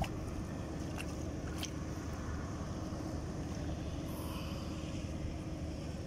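Steady wind rumble on the microphone, with a couple of faint clicks about a second in.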